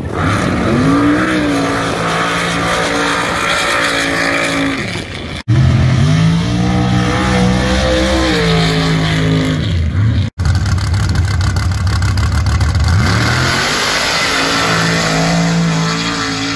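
Sand drag trucks on paddle tires launching at full throttle: the engine revs climb steeply, hold high for a few seconds, then drop off. Three runs follow one another, with abrupt cuts about five and ten seconds in.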